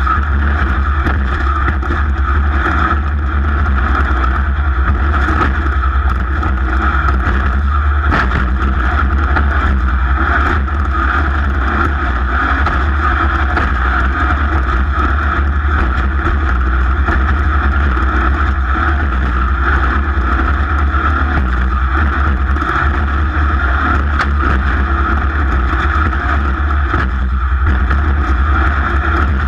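Racing engine running steadily at a nearly constant pitch, with a heavy low rumble underneath.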